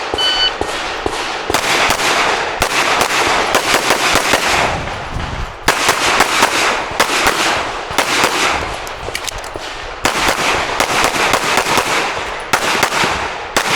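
A shot timer beeps once at the start, then a Glock 47 9mm pistol fires rapid strings of shots through a competition stage, with short breaks between strings.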